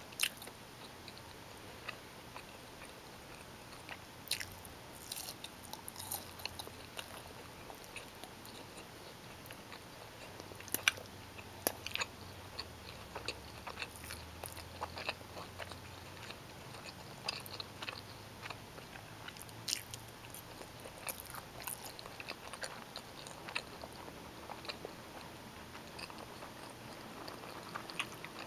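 Close-miked chewing of bowtie pasta in tomato sauce, with wet mouth clicks and smacks at irregular intervals.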